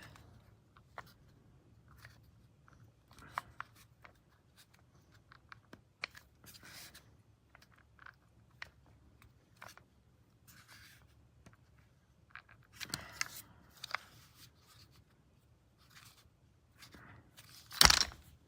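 Scattered light clicks and short crunching rustles of objects being handled, with a louder rustle near the end.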